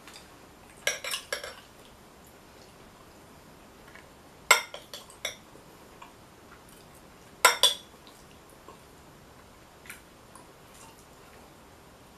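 Metal fork clinking and scraping against a glass bowl while scooping food, in three short clusters of sharp clicks: about a second in, around four and a half seconds, and near seven and a half seconds, with a few fainter taps later.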